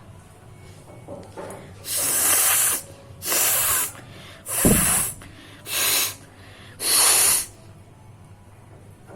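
A person blowing their nose forcefully five times in quick succession, each a hard, hissing blast lasting about half a second to a second.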